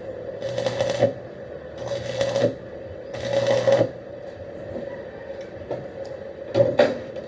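Electric arc welding in short tack-weld bursts: three crackling strikes of under a second each in the first four seconds, each with a low electrical buzz, then a shorter, sharper burst near the end.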